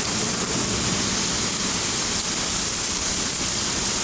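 Heavy thunderstorm rain pouring steadily onto a concrete driveway, a constant even hiss and patter.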